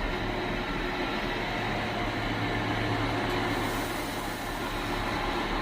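Electric train running, a steady rumble with a low, even hum.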